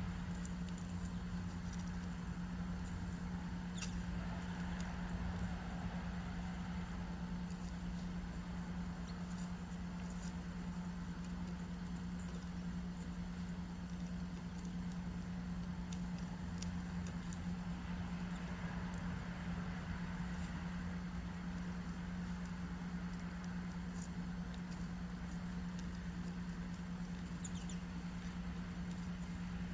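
A steady low hum with a low rumble beneath it, and now and then a faint, short, high chirp from small birds.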